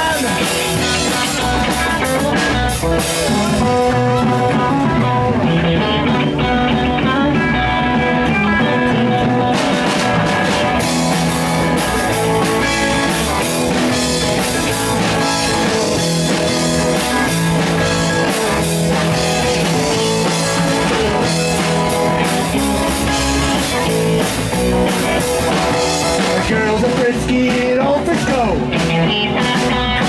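Live rock and roll band playing, with electric guitars and a drum kit driving a steady beat.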